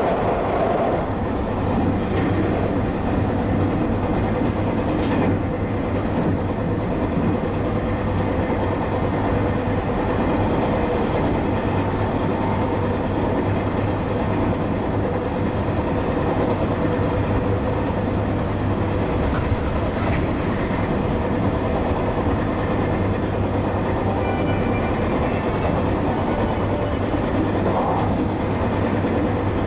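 JR West 221 series electric train running between stations: a steady rumble of wheels on rail with a low hum, and a few faint clicks.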